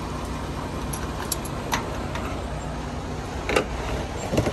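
Steady low rumble of an idling diesel truck engine, with a few brief light clicks and taps over it.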